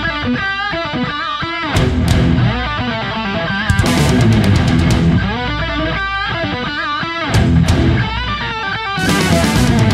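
Rock music led by an electric guitar playing a wavering, bending melody over a steady backing.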